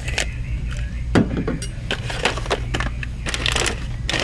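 Toiletries being rummaged through in a shopping cart: plastic bottles and packaging knocking and crinkling in quick, irregular clicks, over a steady low hum.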